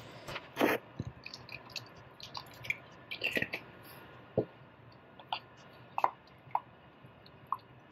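Quiet, irregular small wet clicks and plops from a pot of cooked potato soup.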